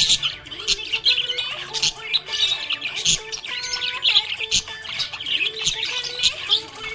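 Budgerigar chirping and warbling in a continuous stream of quick, high chirps and trills.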